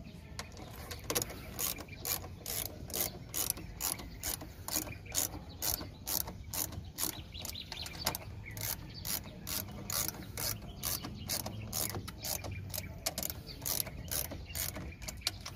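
Hand ratchet wrench clicking in a steady run, about two or three clicks a second, as the bolts of an aircraft wheel's brake assembly are turned.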